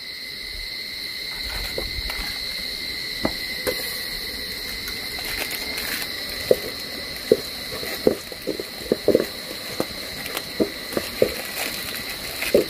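Steady high insect buzz in woodland, with short sharp clicks and snaps scattered through it that come more often in the second half.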